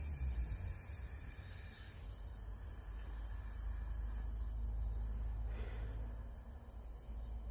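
Oxy-fuel gas torch flame burning with a steady low rumble and hiss as it heats a bronze fitting for brazing.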